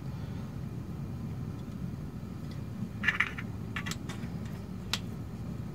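A few light clicks and a brief scrape as an olive oil bottle is handled, with one short rustle about three seconds in and sharp ticks near the end, over a steady low hum.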